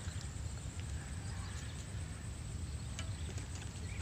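Wind buffeting the microphone, a steady low rumble, with a few faint clicks from handling fishing tackle.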